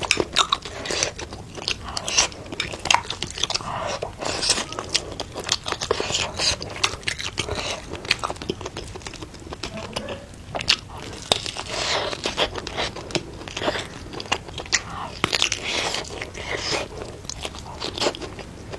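A person biting and chewing food, with many short, irregular crunchy clicks.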